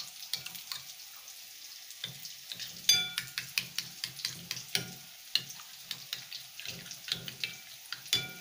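Raw egg being beaten with a metal spoon in a bowl: quick, irregular clinks of the spoon against the bowl, a few ringing briefly. The sharpest clink comes about three seconds in.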